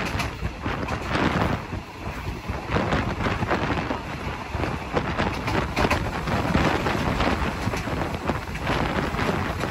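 Wind buffeting a phone microphone held out of the window of a moving passenger train, over the train's running noise on the rails.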